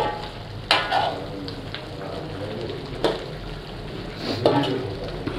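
Chicken korma sizzling as it fries in oil in a pot, stirred with a spoon that scrapes and knocks against the pot several times.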